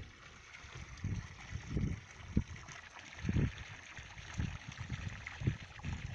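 Wind buffeting a phone microphone outdoors: irregular low thumps of gusts every half second to a second over a steady hiss.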